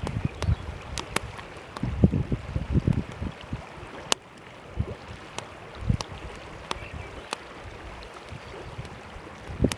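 Campfire crackling with irregular sharp pops, while wind buffets the microphone in low gusts.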